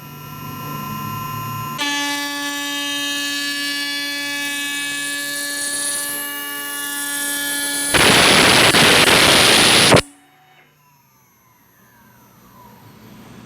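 High-speed spindle motor of a CNC machine for aluminium window profiles whining steadily at speed. About eight seconds in, a much louder rushing noise lasts about two seconds and cuts off abruptly. A faint falling whine follows.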